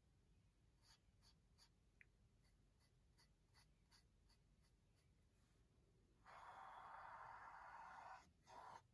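Paintbrush stroking paint across a canvas: near silence with a few faint ticks, then a faint, even scratchy brushing for about two seconds starting around six seconds in, and a short stroke just before the end.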